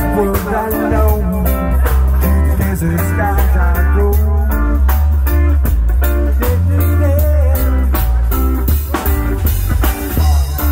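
Live band playing through PA speakers: an electric guitar plays over a drum kit, with a deep bass line and regular drum hits.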